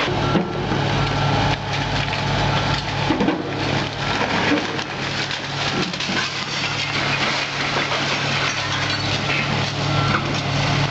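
A hydraulic excavator's engine runs steadily while its bucket tears into a building's timber structure: repeated cracking and splintering of wood and crunching of debris.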